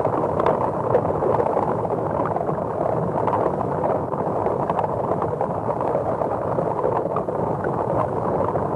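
Sound effect of the kaiju Hedorah in its Perfect Stage form: a steady, dense noise without a pitched roar, with faint scattered crackling ticks.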